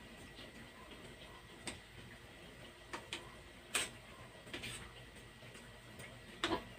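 A long metal utensil clicking and scraping against a small metal frying pan while sesame-coated binangkal dough balls are turned in shallow oil: several irregular sharp clicks, the loudest about four seconds in and near the end, over a faint steady hiss of frying oil.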